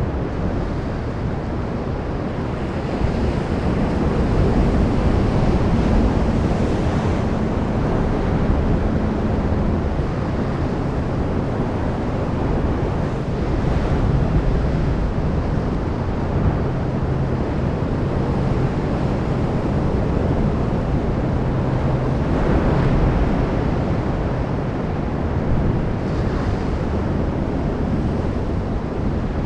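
Sea waves washing ashore: a continuous wash of surf that swells and eases slowly, with wind rumbling on the microphone.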